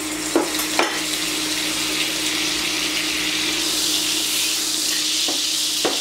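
A pat of butter sizzling as it melts in hot oil in a nonstick pan, pushed around with a wooden spoon; the sizzle grows louder as it goes on. The spoon knocks against the pan twice near the start and twice near the end.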